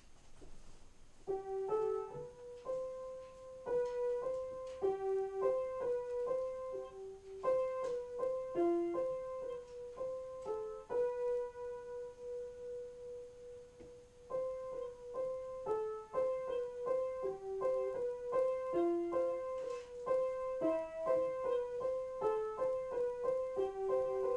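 Upright piano played as a slow improvisation, single notes and small chords in the middle register. About halfway through, one note is held and left to fade before the playing picks up again.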